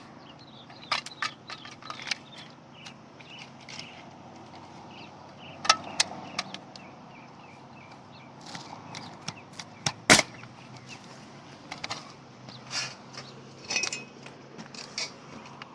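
Nails being driven into asphalt roof shingles: a dozen or so sharp knocks at irregular intervals, the loudest about ten seconds in.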